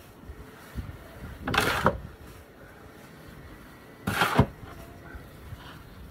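Snow shovel scraping through packed snow twice, about a second and a half in and again about four seconds in, the second stroke ending in a sharp knock.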